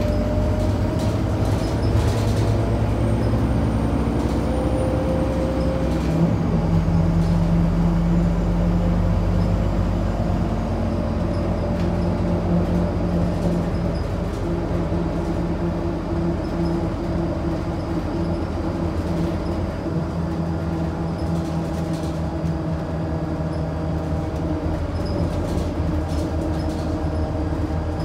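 Scania DC9 nine-litre six-cylinder diesel engine of a Scania K94UB bus running under way, heard from inside the bus along with steady road noise. Its note shifts about six seconds in.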